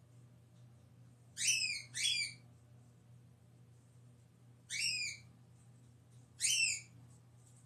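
A bird calling: four short calls that rise then drop in pitch, two close together about a second and a half in, then two single calls a few seconds apart.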